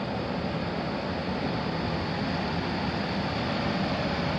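Gas furnace air handler's blower running steadily with its blower door off: a steady, even rushing hum of air and motor.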